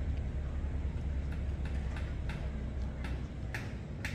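A low steady rumble, with short high chirps starting about a second in and coming more often towards the end.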